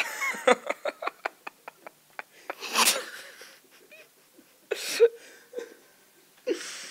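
Two people laughing hard: a quick run of short laughs over the first two seconds, then a few separate breathy bursts of laughter.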